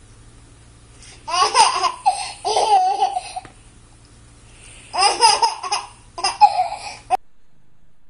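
Baby laughing in four high-pitched bouts of giggling, over a faint steady hum. The sound cuts off suddenly about seven seconds in.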